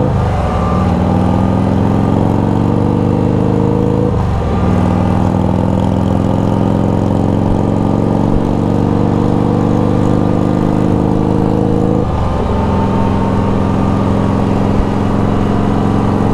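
Can-Am Spyder RT engine accelerating through the gears under way. Its pitch climbs steadily and dips sharply three times at the upshifts: just after the start, about four seconds in and about twelve seconds in.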